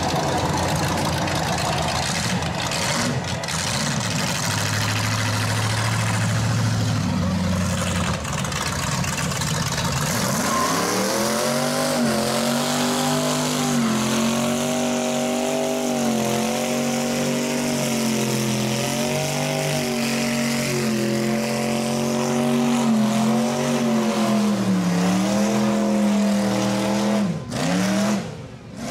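A rat rod pickup truck's engine revving up about a third of the way in and held at high revs, wavering a little, while its rear tyres spin in a smoky burnout. Near the end the revs drop and the sound cuts off suddenly.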